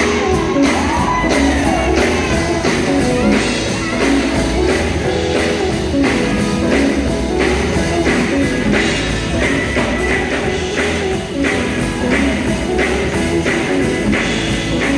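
Live gospel group performing: several singers on microphones over keyboard, bass guitar and drums, with a steady beat.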